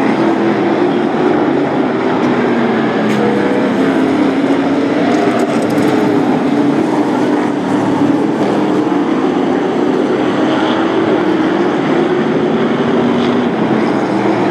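Several race-truck engines running at racing speed, their pitch wavering up and down as the trucks circle the short oval.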